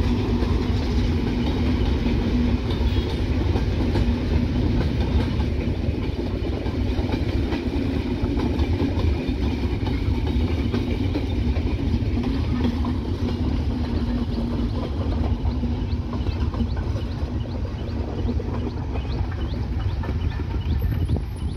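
Intercity passenger train's coaches rolling past at a distance: a steady rumble of wheels on the rails with a steady low hum that dies away near the end.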